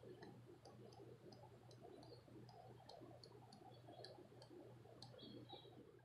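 Near silence: faint outdoor room tone with a steady low hum and scattered faint, high ticks, a few a second.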